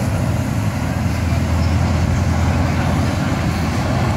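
Formation of jet aircraft flying past: a steady low rumble of jet engines.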